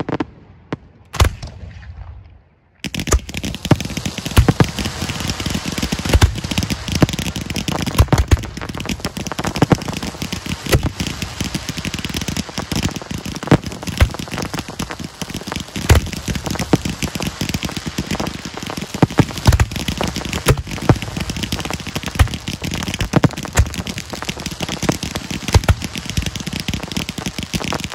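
Firework mortars firing display shells: a few sharp thumps in the first two seconds, then from about three seconds in a dense, steady hiss with frequent, irregular hard thumps of shells leaving the tubes.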